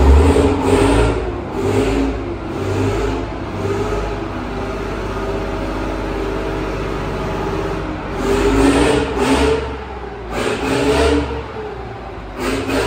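Centurion BARV's Rolls-Royce Meteor V12 petrol engine running and revved again and again. It holds steadier for a few seconds in the middle before the revs pick up once more.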